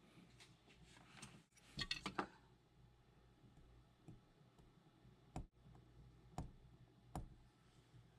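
Light clicks and taps of small hand tools handling a circuit board: a quick cluster about two seconds in, then three single sharp clicks about a second apart, over near silence.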